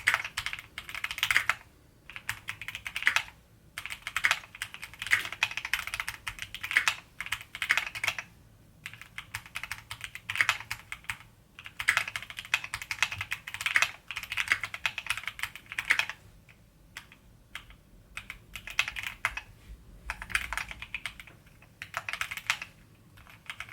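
Typing on a Keychron Q60 mechanical keyboard: runs of rapid key clicks lasting a second or two each, separated by short pauses.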